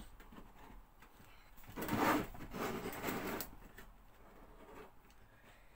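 Key-opened sealed metal tin being wound open: the tear strip scraping against the can as the key is turned, in one stretch of nearly two seconds about two seconds in, then fainter. The strip is stiff and hard to turn.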